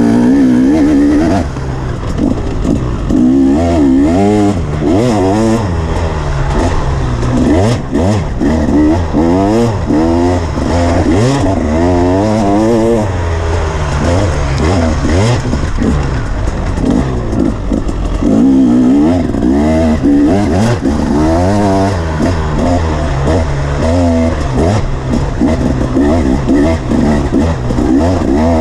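KTM dirt bike engine under hard riding, revving up and dropping back over and over as the throttle is rolled on and off.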